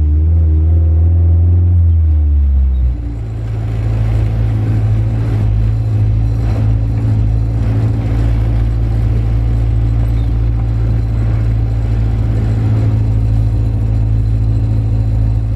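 Car engine and road noise while driving, heard from inside the cabin: the revs drop sharply about three seconds in, then the engine settles into a steady lower drone as the car cruises.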